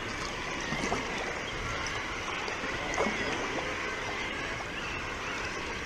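Sea kayak paddle strokes splashing in sea water, over a steady wash of water and wind, with a couple of sharper splashes about one and three seconds in.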